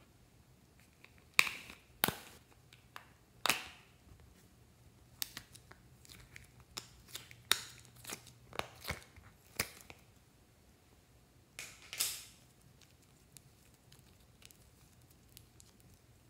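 A clear plastic flower-shaped clay container being handled: a few sharp plastic clicks as its lid comes off, then a quicker run of small clicks and sticky pops as soft modelling clay is peeled out of its compartments, with two more near the middle and nothing much after.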